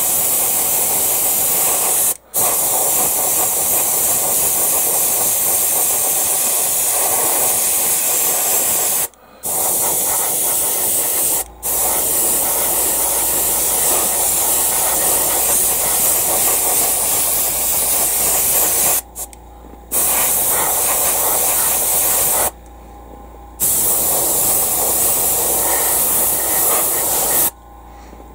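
Gravity-feed airbrush spraying paint: a loud, steady hiss of air and paint, stopping for a moment three times and then for longer pauses three times in the second half.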